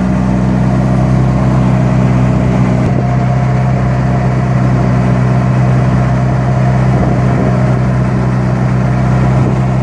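A wooden boat's engine running steadily at a constant speed, a loud even drone with no change in pitch.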